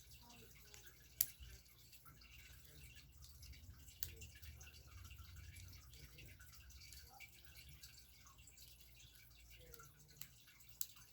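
Quiet room tone with a few isolated sharp plastic clicks: small LEGO pieces, likely the wheels, being pressed onto the build. One click comes about a second in, one around four seconds, and two near the end.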